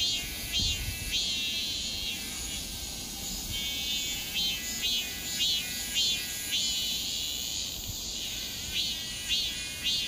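A cicada singing: a high buzzing call in short pulses about twice a second, broken by a longer unbroken buzz about a second in and again around seven seconds in.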